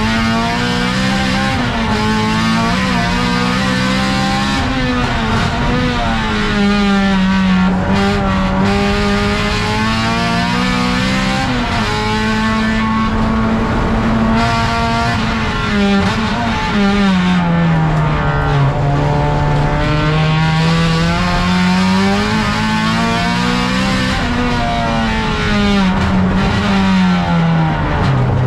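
Race car engine heard from inside the stripped cockpit, running at high revs that swing down and back up again and again through gear changes and corners. There is a longer drop in revs about two-thirds of the way through before it climbs again.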